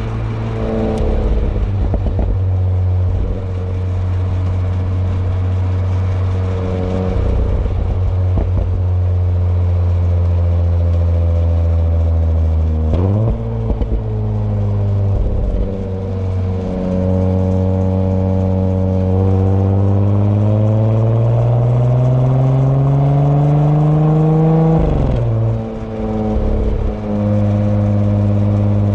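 2018 Audi S4 (B9) turbocharged V6 exhaust under way: a steady drone, a sudden change of pitch about halfway through as it shifts, then a long acceleration with steadily rising pitch that cuts off suddenly near the end. A few short crackles in the first seconds.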